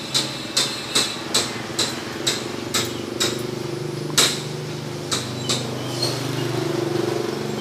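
Knife chopping through a boiled egg onto a wooden chopping board: a run of sharp knocks about two a second, then a few scattered knocks, the loudest about four seconds in. A low steady hum runs underneath.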